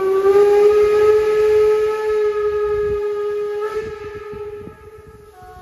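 Steam locomotive whistle blowing one long, loud note that rises slightly in pitch as it opens up. It then tails away about four seconds in.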